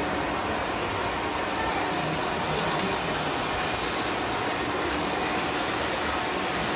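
O scale model freight train running: the metal wheels of the cars give a steady rolling noise on the track.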